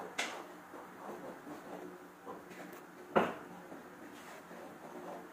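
Cookware handled at a gas stove: a light click just after the start, then a sharp knock about three seconds in, over a faint steady hum.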